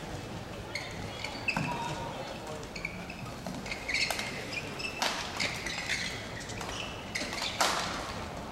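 Badminton rally: rackets strike the shuttlecock several times with sharp cracks, amid short squeaks of players' shoes on the court mat.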